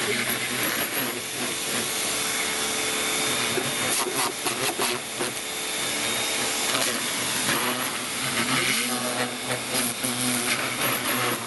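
A motor-driven machine running steadily, with a strong hiss over a low hum.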